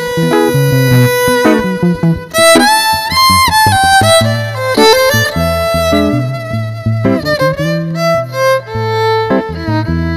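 Violin solo with sliding, bowed notes over hollow-body electric guitar chords, played live as an instrumental break in a jazz standard.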